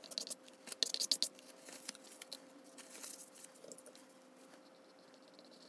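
Sped-up scraping of a plastic card spreading acrylic paint across illustration board: a quick run of short, scratchy strokes, thickest in the first few seconds and dying away after about four seconds.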